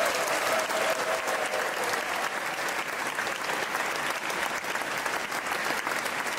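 Concert audience applauding steadily, greeting a band as it walks on stage. One person's long cheer rises over the clapping in the first couple of seconds.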